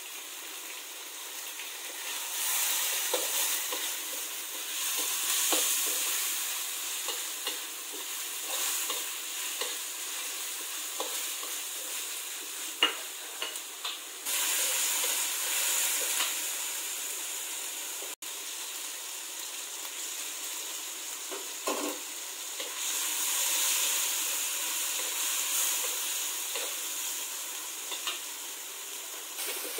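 Chicken slices, shallots and spring onion sizzling in hot oil in a wok while being stir-fried with a metal slotted spatula, which scrapes and clicks against the pan now and then. The sizzle swells louder several times.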